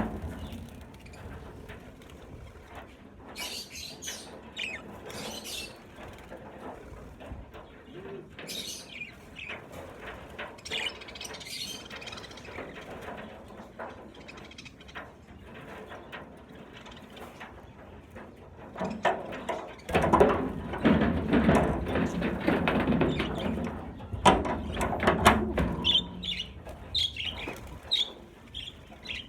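Budgerigars chirping in short scattered calls, with a louder stretch of noisy rustling and knocking from about twenty seconds in that lasts several seconds.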